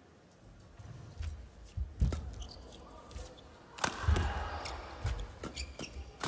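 Badminton rally: sharp cracks of rackets striking the shuttlecock, the loudest about two and four seconds in, mixed with players' shoes squeaking and thudding on the court mat.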